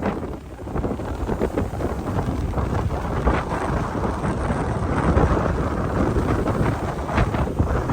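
Strong gusting wind buffeting the microphone: a rough, low rumble that swells and dips with the gusts.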